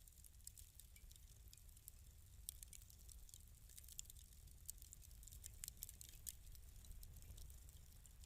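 Wood fire in a fireplace crackling softly, with irregular small snaps and pops over a low rumble.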